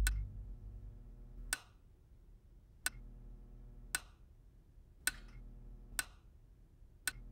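A wall light switch flicked on and off again and again, about seven sharp clicks roughly a second apart. A faint electrical hum from the lights comes in after one click and stops at the next.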